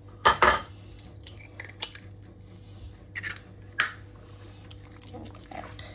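A raw egg being cracked open over a bowl of chicken mince: a couple of sharp shell cracks about half a second in, then a few lighter clicks and taps of shell and fingers a few seconds later.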